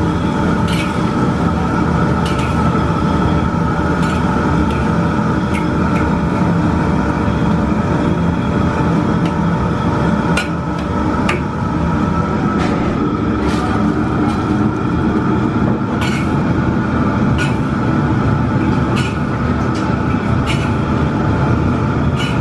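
Wontons deep-frying in a wok of bubbling oil over a steady, loud kitchen roar from the gas burner and fans, with a sharp metal clink every second or two from the ladle and wire strainer against the wok.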